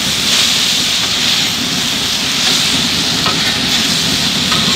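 Beef strips, green peppers and onions sizzling on a hot steel flat-top griddle as a metal spatula tosses and scrapes them across the surface. A steady low rumble runs underneath.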